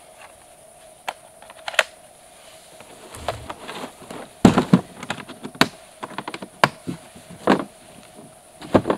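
Dry twigs and brush cracking and snapping underfoot while pushing through a dense thicket: irregular sharp cracks, the loudest cluster about four and a half seconds in.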